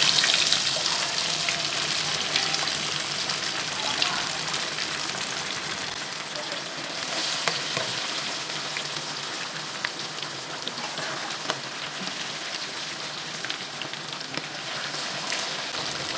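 Fish pieces frying in hot oil in a pan: a steady sizzle, loudest at the start and easing off slowly, with a few light taps of a metal turner in the pan.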